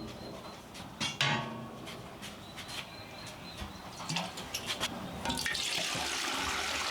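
A few knocks and clinks, then water running or pouring steadily from about five seconds in.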